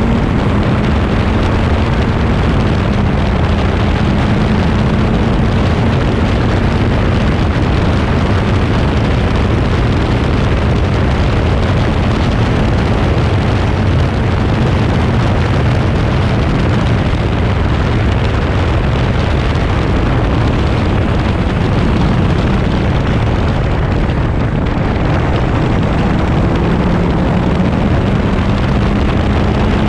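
Onboard sound of a Crossle 32F Formula Ford racing car at speed: its 1600 cc Ford Kent four-cylinder engine pulling hard under loud wind noise on the microphone. The engine note rises at the start, sinks into the wind rush through the middle, and rises again near the end as the car accelerates out of a corner.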